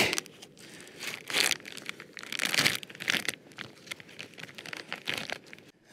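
Plastic packaging of a vacuum-packed fillet steak crinkling in irregular spells as it is handled and peeled open.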